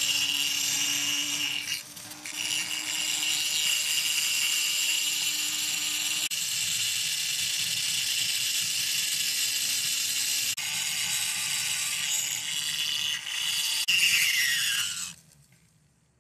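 Flexible-shaft rotary tool grinding a magnesium chainsaw case: a steady high whine with grinding noise. It eases off briefly about two seconds in, then near the end the whine falls in pitch as the tool winds down and stops.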